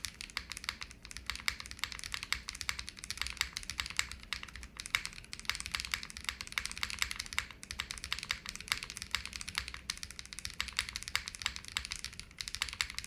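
Steady, fast typing on a foamless JRIS75 75% custom mechanical keyboard with Moon v2 linear switches and GMK keycaps: a dense run of key clacks, a little thin in tone.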